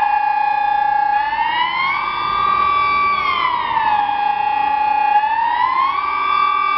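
Electronic civil-defence siren sounding the Swiss general-alarm signal: a loud wailing tone that glides up, holds, glides down and holds again, about every two seconds, in a steady rising-and-falling cycle.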